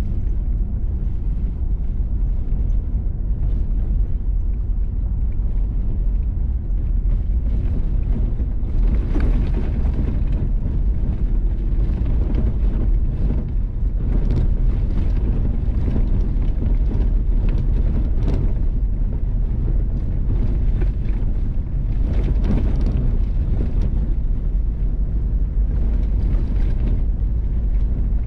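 Vehicle driving on a gravel road: a steady low rumble of tyres and engine with wind noise, and irregular grainy surges of road noise from about nine seconds in.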